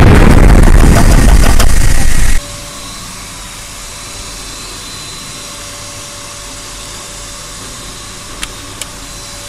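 Portable high-pressure PCP compressor running loud at the end of a fill to about 280 bar, then switched off abruptly about two and a half seconds in. A low steady hum with a thin whine remains, with two small clicks near the end.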